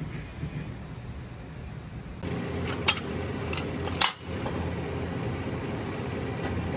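Glass beer bottles clinking against each other in a metal bucket as a hand moves them: three sharp clinks between about three and four seconds in, over a steady low background noise.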